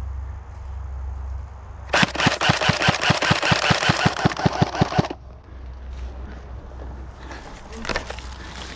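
An airsoft electric gun firing a sustained automatic burst of about 18 rapid, evenly spaced shots, about six a second, lasting some three seconds and stopping abruptly.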